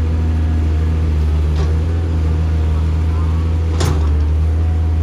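Heavy construction machine's diesel engine running steadily with a deep, even hum, and one sharp knock a little under four seconds in.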